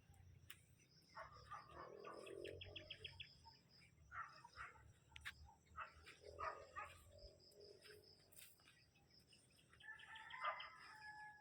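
Faint bird calls in several short bouts, the clearest and loudest about ten seconds in.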